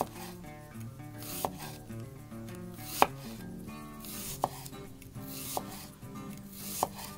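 Chef's knife slicing a red onion thinly on a wooden cutting board: slow strokes, each ending in a sharp knock of the blade on the board, about five in all.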